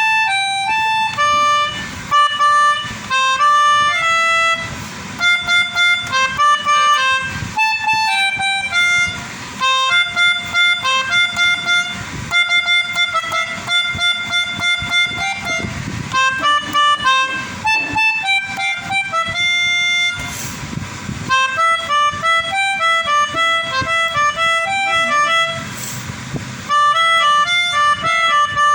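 Pianika (melodica) playing a quick, choppy melody of short separate notes, imitating the 'telolet' tunes of a basuri multi-tone bus horn.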